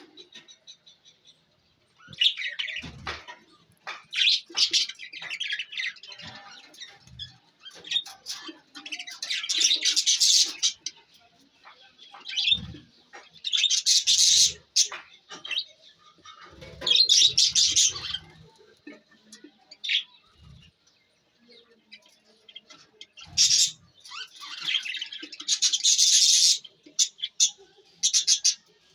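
Budgie chicks chirping in repeated raspy bursts a second or two long, with short pauses between, and a few soft low thumps.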